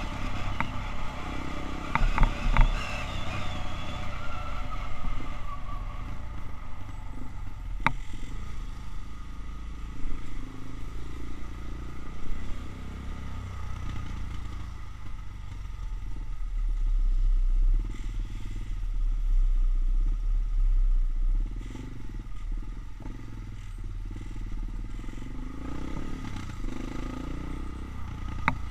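Motorcycle engine running while riding through slow traffic; its pitch drops over the first few seconds as the bike slows. A strong low rumble swells for a few seconds past the middle, and there are a few sharp clicks or knocks.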